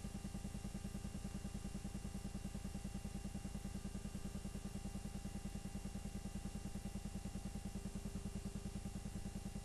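Film projector running, a rapid, even mechanical clatter with a low hum, from old silent home-movie film played back for transfer.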